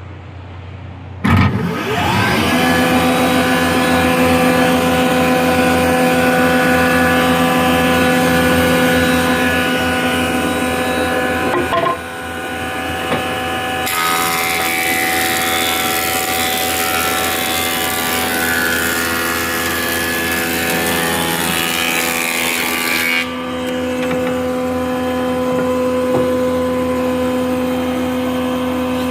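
Electric wood planer switching on about a second in and spinning up to a steady hum. Twice it gives a loud hissing rush as it shaves wood, the second time brighter, and near the end it runs free again.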